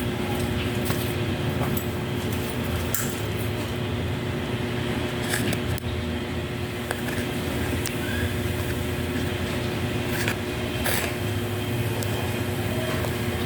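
A steady low hum with a constant tone above it, broken by a few light clicks and knocks.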